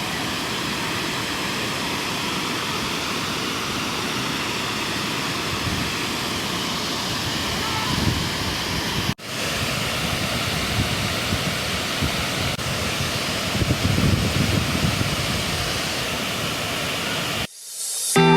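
Waterfall: a steady rush of falling water. It breaks off for an instant about nine seconds in, then resumes and stops just before the end.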